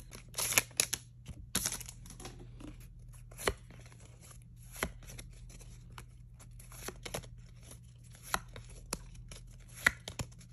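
A foil trading-card booster pack torn open, its wrapper crinkling loudly in the first couple of seconds, then the cards slid and flicked one behind another in the hand, a run of short crisp clicks and rustles.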